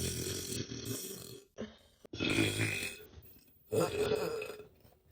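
A young woman belching: three long, low-pitched burps one after another, each about a second and a half long, with a short burp between the first two.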